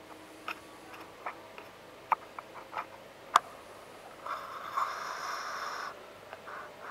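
Inside a moving electric train carriage: scattered sharp ticks and clicks of interior fittings rattling and creaking, with a harsher squeaking rasp lasting about a second and a half past the middle.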